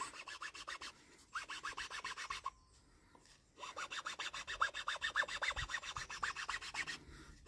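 An old round chainsaw file rasping back and forth in a groove in the wooden handle of a hiking stick, in quick short strokes with a pause of about a second midway. It is rounding out a saw cut into a twisted hand-grip channel.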